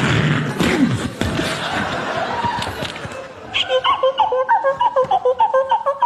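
People laughing, then from about three and a half seconds in a quick run of short pitched notes repeating about four times a second.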